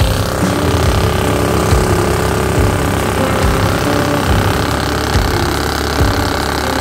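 Predator 420cc single-cylinder four-stroke engine on a Mud-Skipper surface-drive mud motor running steadily under load, pushing a jon boat through shallow marsh water, with a few brief thumps along the way.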